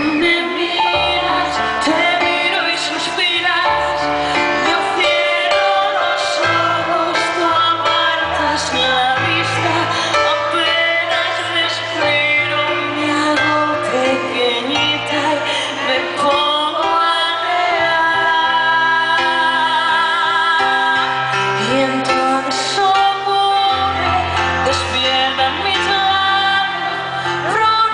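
A female vocalist singing a song live into a microphone, accompanied by keyboard, heard from the audience in a large concert hall.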